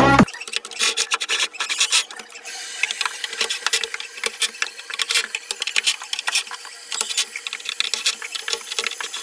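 Music cuts off just after the start. Then irregular rubbing and scraping with many small clicks, as a cordless drill is worked around the steel frame of a woofer being screwed into a speaker box.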